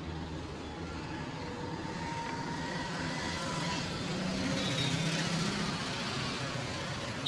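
Street traffic: a steady wash of road noise, with a passing vehicle growing louder in the middle and easing off again.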